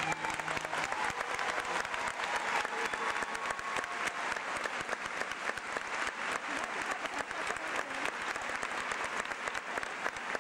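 Large audience applauding, a dense steady clapping that fills the hall, with the last of the dance music stopping right at the start.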